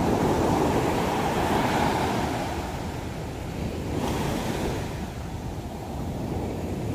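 Heavy surf breaking and washing up a sandy beach. It rises and falls about every three to four seconds as each wave breaks and draws back.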